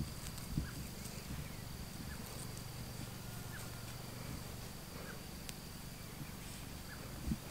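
Quiet outdoor ambience: a steady high-pitched insect drone over a low hum, with a few faint chirps and a soft thump near the end.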